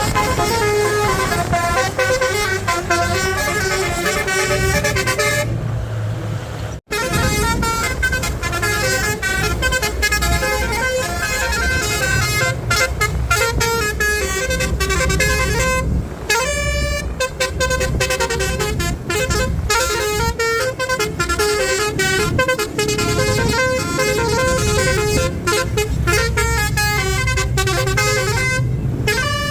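A bus's basuri horn, a multi-tone musical air horn, plays a tune note after note over the low rumble of the bus engine. The sound drops out for a moment about seven seconds in, and a short rising slide comes around the middle.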